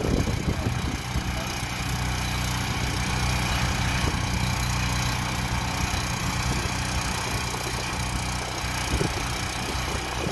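Small gasoline engine of a Little Beaver hydraulic power unit running steadily, driving the hydraulic earth drill as it turns a screw anchor into the ground.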